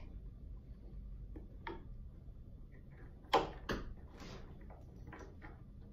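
Light handling sounds as an elastic drive belt is stretched around the wooden pulleys of a drum carder: soft rubbing and scattered small clicks, with two sharper knocks close together about halfway through.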